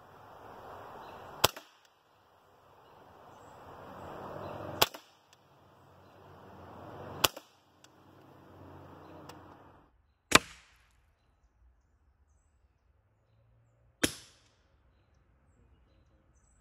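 Hatsan Invader Auto .25-calibre pre-charged pneumatic semi-automatic air rifle firing five sharp single shots, spaced about three seconds apart.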